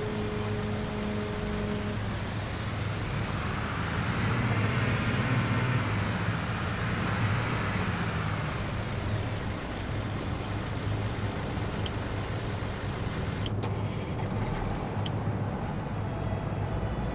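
Diesel engine of a CAT asphalt paver running steadily, with a low drone. The engine sound swells between about four and eight seconds in, and a few sharp clicks come near the end.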